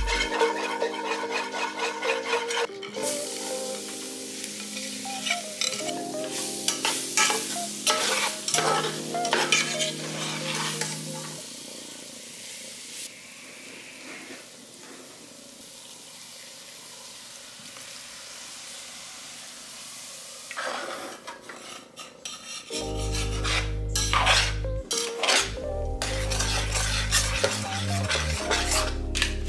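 Food sizzling in a frying pan while a utensil stirs it and scrapes against the pan, with a stretch of steady sizzle in the middle. Background music plays at the start and the end.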